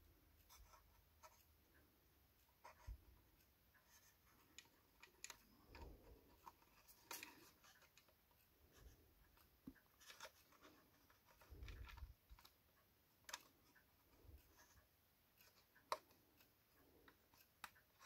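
Faint scattered clicks and taps of small plastic parts being handled: a wire connector being worked into a tight socket on a small circuit board inside a plastic battery box.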